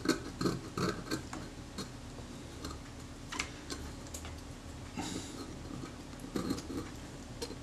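The back edge of a scalpel scraping old adhesive off the metal base plate of a Kodak Retina IIIS camera body, in short irregular scrapes and clicks. The strokes come quickly in the first second or so and then grow sparser.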